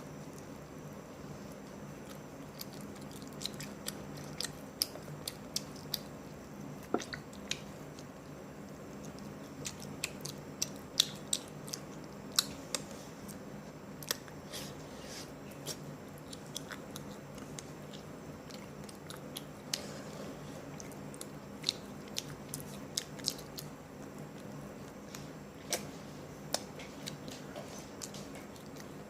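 Close-up mouth sounds of a person biting and chewing greasy spicy chicken: irregular sharp crunches and wet smacks over a steady low hum.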